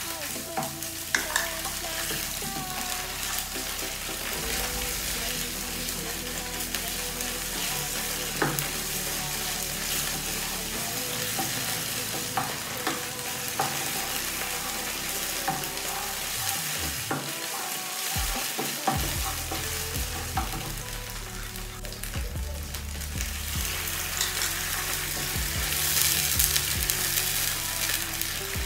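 Chopped onions and tomato sizzling in hot oil in a non-stick frying pan, stirred with a wooden spoon that scrapes and knocks lightly against the pan. The sizzle grows louder near the end.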